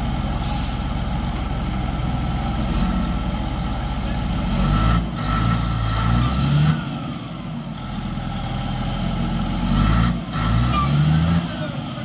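Komatsu D155A bulldozer's diesel engine running, its pitch rising and falling twice as it is throttled, with a short hiss of air about half a second in.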